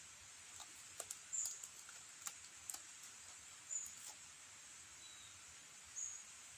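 Three short, high chirps from a small bird about two seconds apart, with one fainter, lower chirp between the second and third, over a scatter of faint sharp clicks and crackles in the first few seconds.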